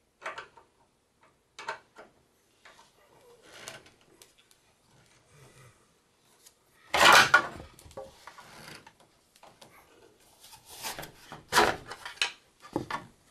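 A Phillips screwdriver and the plastic end caps of a treadmill's rear roller being handled: scattered small clicks and scrapes as screws are turned and the caps worked loose, with a louder clatter about seven seconds in and another knock near twelve seconds.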